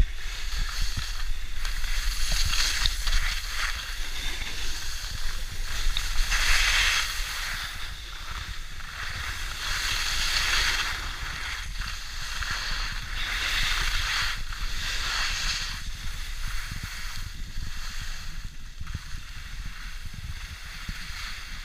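Scraping hiss of sliding downhill on packed snow, swelling with each turn every few seconds, over a low wind rumble on the microphone.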